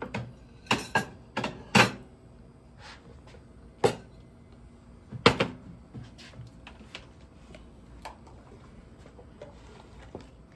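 Sharp clinks and taps of a utensil against a glass jar of pickled red onions as the onions are fished out, several quick ones in the first two seconds, then two louder single knocks about four and five seconds in.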